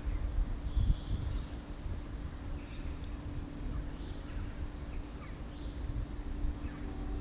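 Small birds chirping repeatedly in short high notes over a steady low hum and a rumbling outdoor background.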